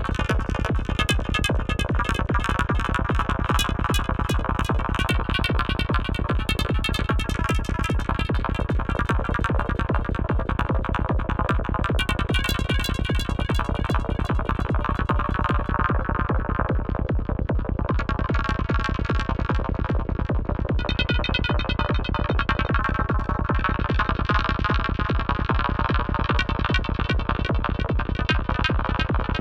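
Psytrance synthesized in VCV Rack modular synth software: a fast, steady kick-and-bass pulse under synth effects in the upper range, whose texture changes several times.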